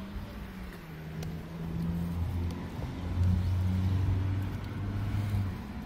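A motor vehicle's engine running close by with a steady low hum, which swells around the middle and fades near the end, like a car or truck moving slowly past.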